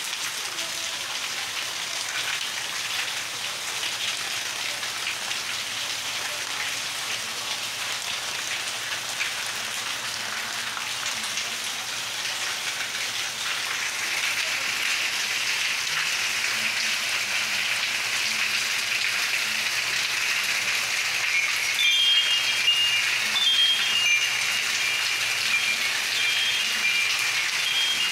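Rain falling steadily, an even hiss of drops on surfaces that grows louder about halfway through. Near the end, short high-pitched tones sound over it again and again.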